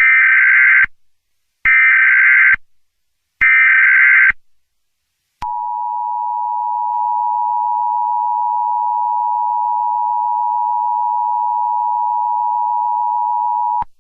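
Emergency Alert System tones. First come three short bursts of SAME digital header data, about a second apart, which encode the alert. Then the steady two-tone EAS attention signal sounds for about eight seconds and cuts off abruptly, marking the start of an emergency alert broadcast.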